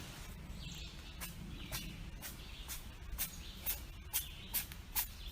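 A run of sharp clicks, about two a second, starting about a second in, over a low steady hum, with faint high chirps between them.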